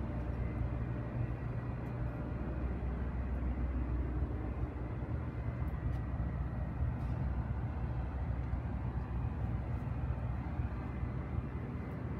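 Steady low rumble of city street background noise, with no distinct events standing out.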